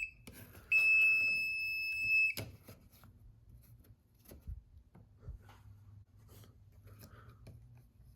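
Non-contact voltage tester beeping with one steady high tone of about a second and a half, shortly after the start, the sign that it senses voltage: the black conductor in the box is live. Faint clicks follow.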